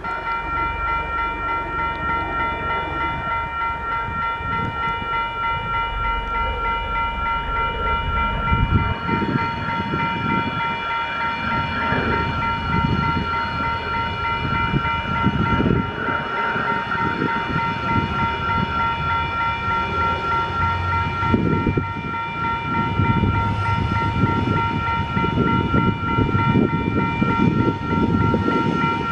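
Level crossing warning bells ringing steadily on a regular beat as a Tasrail freight train hauled by TR class diesel locomotives approaches. The locomotives' engine rumble grows louder over the last several seconds as the train comes close.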